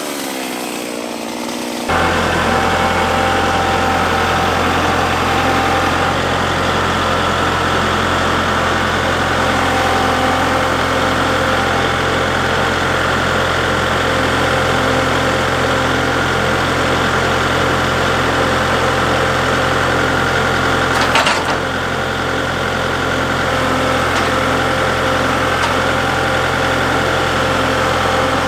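An engine idling steadily, cutting in abruptly about two seconds in, with one sharp click about three quarters of the way through.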